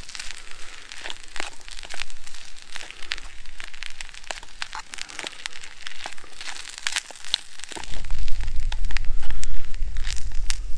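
Metal spoon scraping and clicking against a metal mess tin as rice is stirred, a quick run of short sharp clicks. Near the end a loud low rumble comes in and covers the rest.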